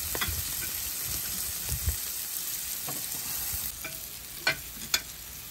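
Pork belly pieces sizzling on a round slotted grill plate, a steady hiss, with a few sharp clicks, the loudest two near the end.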